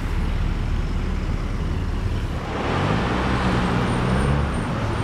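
BMW 328i's inline-six idling steadily, heard close to its twin exhaust tips. About halfway in, a vehicle passing on the road adds a swelling rush and a low drone that fade near the end.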